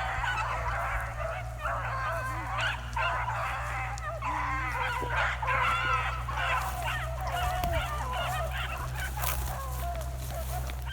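Pack of beagles baying in full cry on a running rabbit's trail, many hound voices overlapping continuously.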